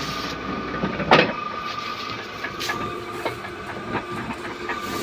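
Paper-cutting guillotine machine running with a steady hum while trimming a stack of notebooks, with one sharp knock about a second in and a few lighter clicks after.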